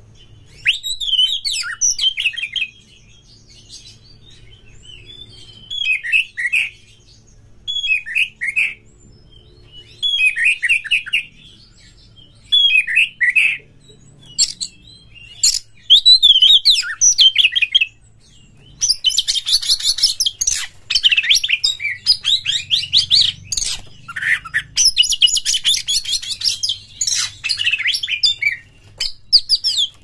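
Oriental magpie-robin (kacer) singing in full song: short whistled phrases separated by pauses, then, about two-thirds of the way in, a long fast unbroken stretch of varied song.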